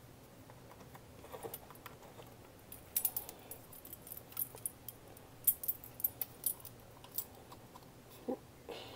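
Hard-plastic action figure parts being handled and the legs fitted onto the body: scattered light clicks and small rattles, clustered at about three seconds and again around six seconds.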